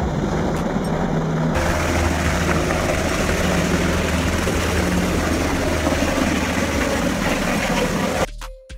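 Coast Guard helicopter rotors and turbine engines running loud and steady as the helicopter flies past close by, the sound changing about a second and a half in to a second helicopter with a deeper, steadier rotor drone. It cuts off suddenly near the end, giving way to music with chiming clinks.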